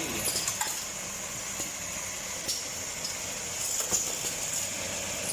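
Automatic double-head steel bar chamfering machine running: a steady mechanical hum with a constant high hiss, and a few sharp clicks scattered through it.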